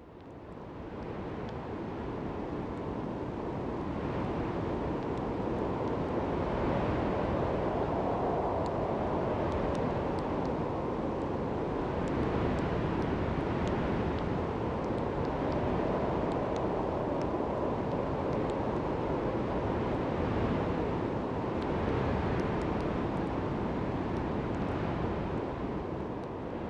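Procedurally synthesized wind and rain from the AudioWind Pro and AudioRain Pro plug-ins: a steady rushing noise that swells and eases in slow gusts every few seconds, with scattered faint ticks. It rises over the first few seconds.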